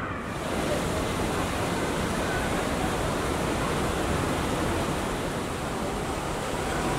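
A steady, even rushing noise with no distinct events, coming in fuller just after the start.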